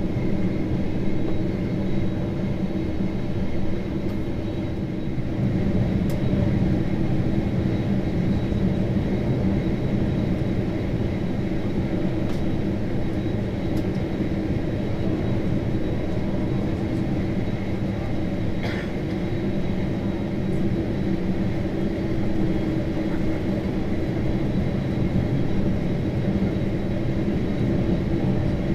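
Boeing 767-300ER jet engines running at idle while taxiing, heard from inside the cabin: a steady low drone with a faint high whine over it.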